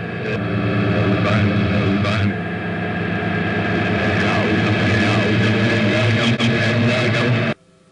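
Reversed-audio ghost-box (ITC spirit box) output: a dense, garbled jumble of backwards voice fragments over a steady hum, played to listen for spirit replies. It cuts off suddenly near the end.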